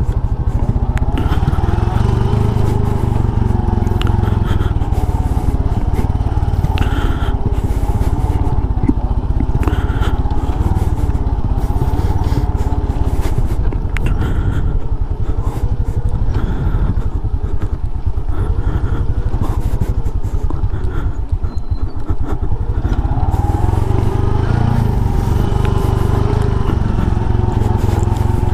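Small motorcycle engine running on the move, its pitch rising and falling with the throttle, over a steady low rumble.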